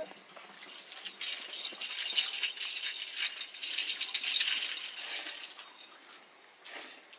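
A high, rattling buzz with a steady whine in it, swelling about a second in and fading away over the next four seconds.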